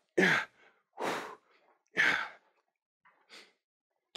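Hard exhaled breaths in short puffs, about one a second, from a person exerting themselves through a bodyweight exercise. Three strong puffs are followed by a fainter one near the end.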